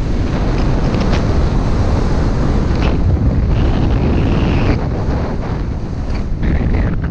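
Wind buffeting a GoPro action camera's microphone during a fast ski descent, a loud, steady rumble, with the hiss and brief scrapes of skis sliding over snow.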